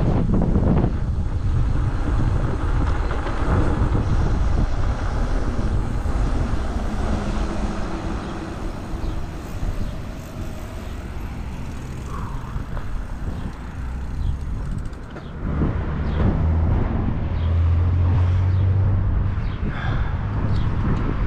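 Wind buffeting the microphone while moving downhill: a loud, continuous low rumble that eases for a few seconds in the middle and picks up again.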